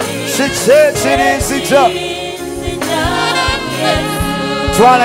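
Live gospel worship music: singers and a choir with gliding, wavering voices over a backing band with a steady drum beat.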